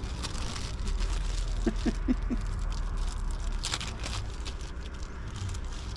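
Crinkling and rustling of a tea bag's wrapper being torn open by hand, in scattered crisp crackles, over a steady low rumble. A few short, faint voice-like sounds come about two seconds in.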